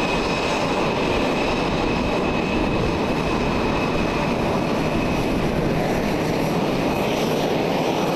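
Jet engines of an F/A-18F Super Hornet running steadily on the ground, a dense rushing noise with a steady high whine.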